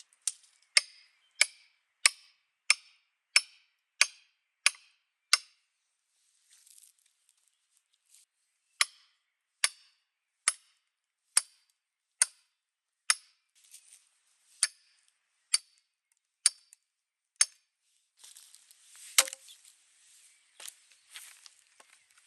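Wood being chopped in even, sharp strikes. The first run has about nine strokes, roughly three every two seconds; after a short pause comes a slower run of about eleven strokes, roughly one a second. Near the end there is rustling and one louder knock.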